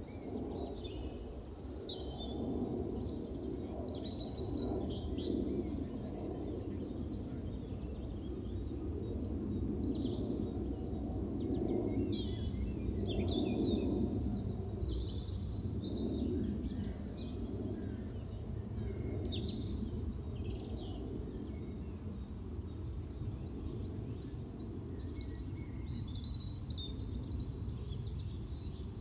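Small birds singing in short, repeated high phrases that sweep downward, over a steady low rumble of background noise.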